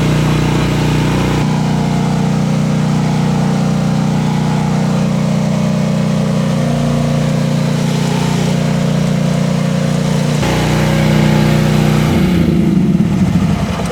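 Rippa R10 mini excavator's engine running steadily while the machine works with a load of about 350 pounds.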